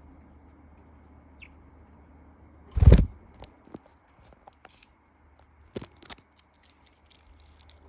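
One loud low thump about three seconds in, then a budgie's scattered soft clicks and brief high chirps.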